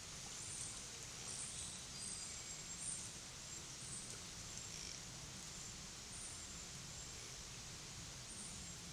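Summer woodland ambience picked up by a trail camera: a steady hiss with short, high-pitched chirps repeating every second or so.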